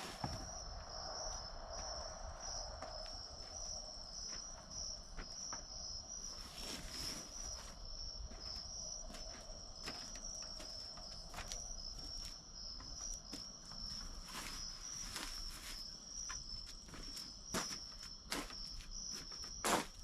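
A chorus of night insects trilling steadily at a high pitch, with scattered knocks and footsteps from someone working close by.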